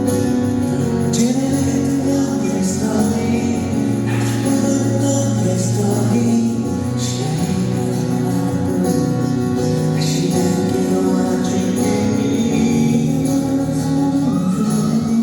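Live pop music played at a concert: a band with a singer, loud and continuous, with bright cymbal-like splashes recurring every second or two.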